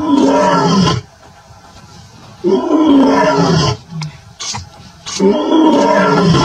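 Male lion roaring: three loud calls of about a second each, spaced about two and a half seconds apart, each sliding down in pitch.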